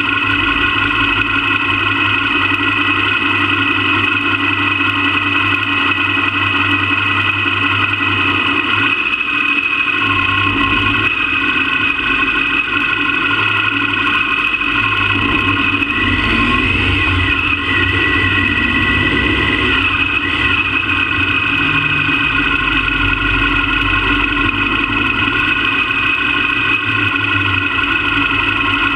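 Motorcycle engine running at low road speed. About halfway through it revs up and then settles back down.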